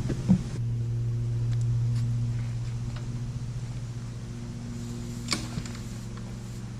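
Pressure washer motor running with a steady hum that slowly fades, with a sharp click near the start and another about five seconds in.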